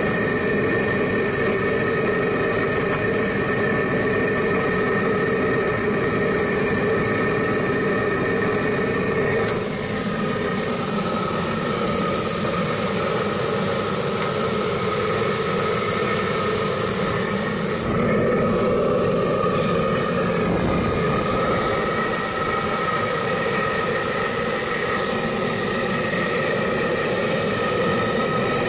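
1949 Bolinder-Munktell BM20 tractor engine running steadily at idle, heard close to the engine bay.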